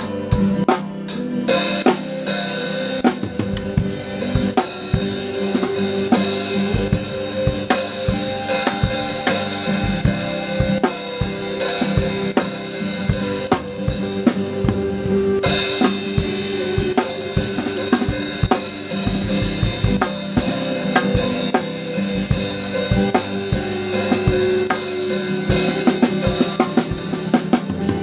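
Drum kit played in a worship song: bass drum, snare and rimshot strokes over sustained instrumental backing. The sound gets brighter about halfway through.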